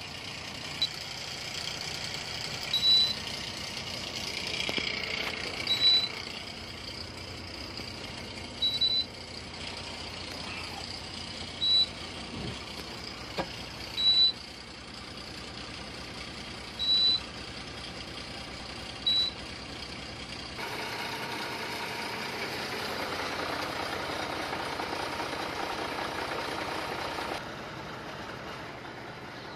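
A short, high electronic beep repeats about every two to three seconds over a steady low vehicle hum, then stops. For several seconds near the end a louder, even rushing noise takes over.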